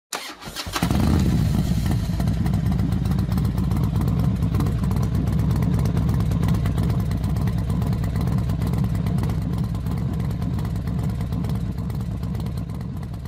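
Racing motorcycle engines running, a dense steady low rumble that sets in about a second in after a brief sharp burst of noise and eases off slightly toward the end.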